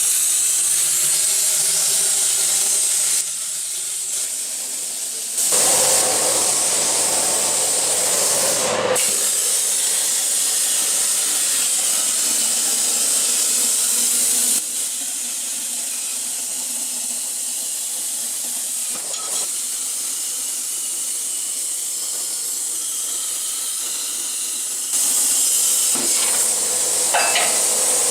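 Hypertherm Powermax85 plasma cutter cutting steel plate, a loud steady hiss of the arc and air jet. It drops to a quieter hiss twice, briefly about three seconds in and for a longer spell through the second half, as the torch stops between cuts.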